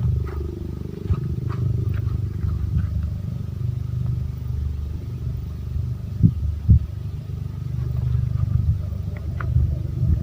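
Wind buffeting the microphone, a low rumble that rises and falls with the gusts. Two short knocks come a little past the middle.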